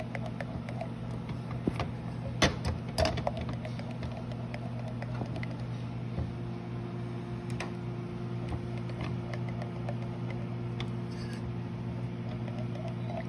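A silicone spatula stirring melting sugar in a small metal pan as it turns to caramel, with light scrapes and two sharper knocks about two and a half and three seconds in, over a steady low hum.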